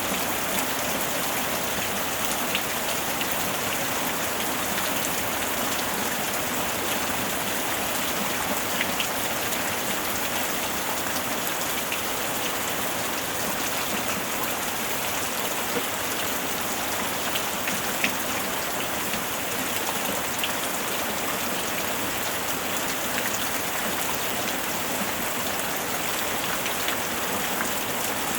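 Steady rain falling, an even hiss with a few separate drop ticks standing out here and there.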